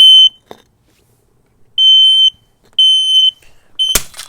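Smoke detector sounding its alarm: loud, shrill half-second beeps, the last beep of one three-beep group, a pause, then a new group of three. About four seconds in, a sharp knock cuts the third beep short.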